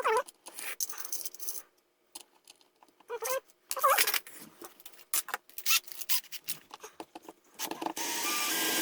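Plastic power-strip housing being handled and fitted back together: irregular clicks, rattles and scrapes of plastic parts, with a steady noise for about a second near the end.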